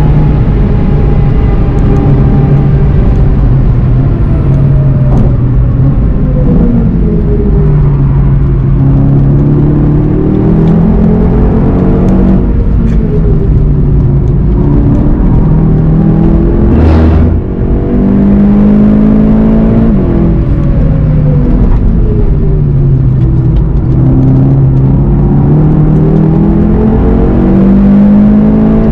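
A Volkswagen Golf GTI TCR's turbocharged 2.0-litre four-cylinder engine heard from inside the car at track pace. The engine note falls as the car brakes and shifts down, then climbs again through the gears under hard acceleration. About halfway through there is a sharp crack and a brief dip in loudness at a gear change, over steady wind and tyre noise.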